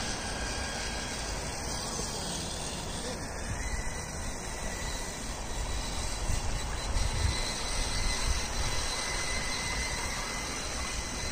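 Radio-controlled scale crawler's electric motor giving a faint, steady high whine over a constant noisy rumble.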